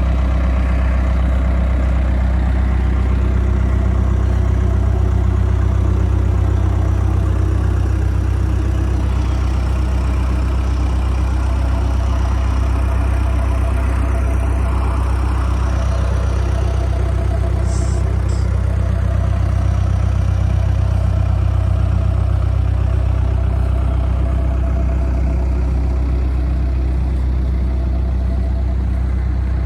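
Diesel engine of a New Holland B95B loader backhoe idling steadily.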